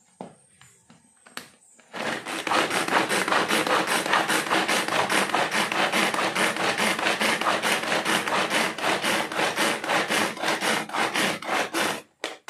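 Pull-string manual food chopper being yanked over and over, its blades whirring through onion and green chillies in quick, even rasping strokes. A few light clicks of the lid being handled come first; the chopping starts about two seconds in and stops just before the end.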